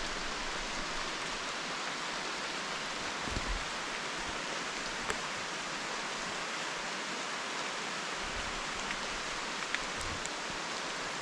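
Steady hiss of rain falling, with a few faint ticks.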